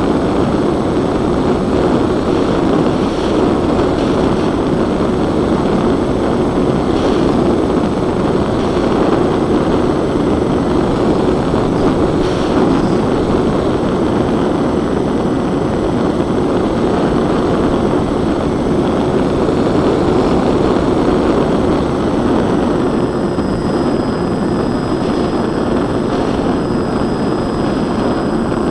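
Twin-engine RC plane in flight, heard from its onboard camera: the propellers' steady drone over a dense rush of air.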